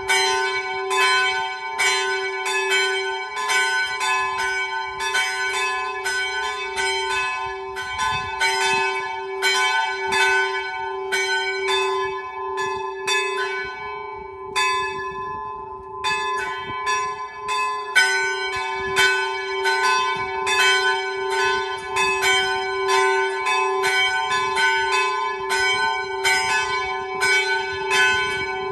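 Two small church bells swinging in full peal, hand-rung by cables, striking in a fast, overlapping stream over a steady ringing hum. The strikes thin out briefly about halfway through, then resume.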